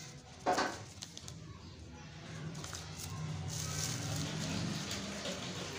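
Plastic grocery bags and a paper list rustling and crinkling as a hand moves through the shopping, with a short sharp sound about half a second in and the rustling growing louder from about halfway.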